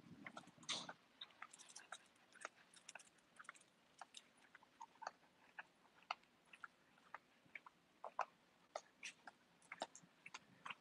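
Faint, irregular clicking and tapping of small dogs' claws on brick paving as they walk on leash, a few sharp ticks a second.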